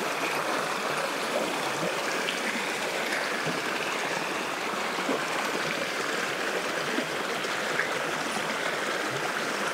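Mountain creek running, a steady rush of water, with a few faint ticks over it.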